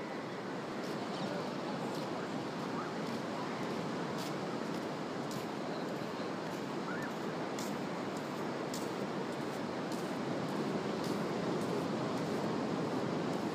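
Ocean surf washing onto a sandy beach: a steady wash of noise.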